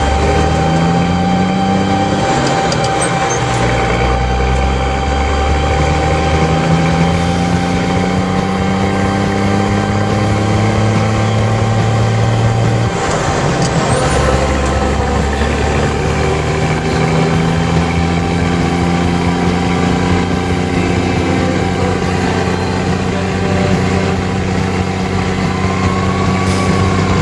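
Cab-interior sound of a 1969 M35A2 army truck's multifuel turbo-diesel inline-six pulling away and accelerating. The engine pitch climbs, breaks off at a gear change about 13 seconds in, then climbs again and settles into a steady run. A thin steady whine runs over the engine in the first half.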